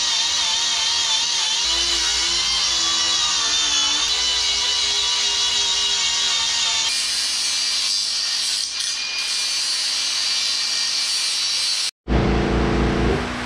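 An angle grinder whining as it grinds the steel axle tube, with background music over it. Near the end the sound cuts off abruptly and a different steady hum begins.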